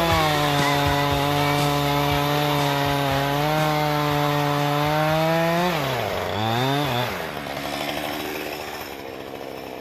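Chainsaw engine running at high throttle with a steady high pitch. About six seconds in the throttle is let off: the revs drop, blip up once briefly and fall again, and the saw runs on more quietly.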